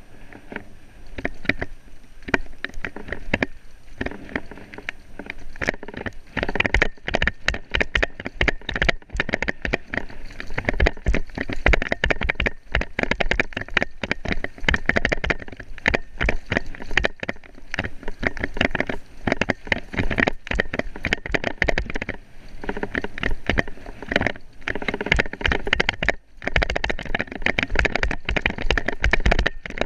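Dense, irregular clatter and knocking of a vehicle jolting over rough off-road ground. It gets louder and busier about six seconds in.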